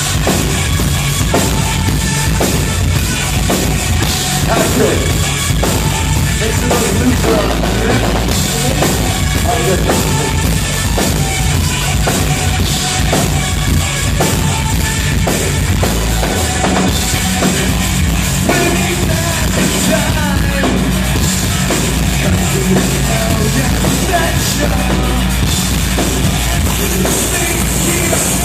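Rock band playing live and loud, with the drum kit to the fore over sustained bass notes, in a heavy rock style.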